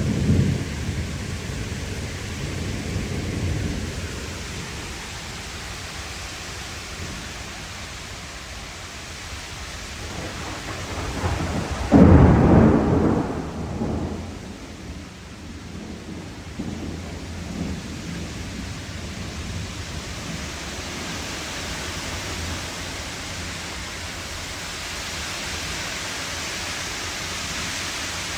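Thunderstorm: steady heavy rain with low rolling thunder, and a loud thunderclap a little before the halfway point that rumbles away over about two seconds.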